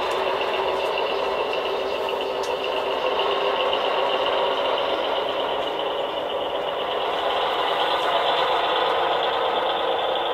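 Model New York Central diesel locomotive running along the track, giving a steady, thin engine sound with no deep rumble from its small onboard speaker, along with the hum of its motor. The sound grows a little louder near the end as the locomotive approaches.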